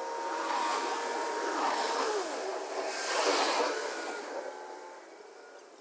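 Yanmar F195 tractor's diesel engine running under the load of its rotary tiller, heard from a distance and fading as it pulls away. A brief rush of noise comes just past halfway.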